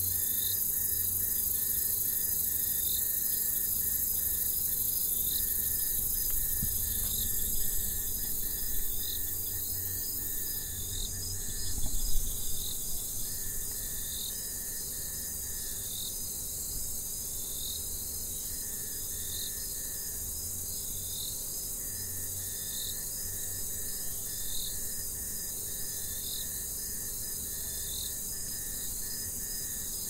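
Night-time jungle insect chorus: a steady high-pitched insect drone with crickets giving short chirps about once a second. A few brief, soft low knocks are heard about a quarter to halfway through.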